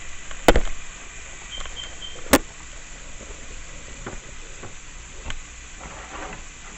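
Chicken wings sizzling steadily as they fry, with two sharp knocks, one about half a second in and one about two and a half seconds in.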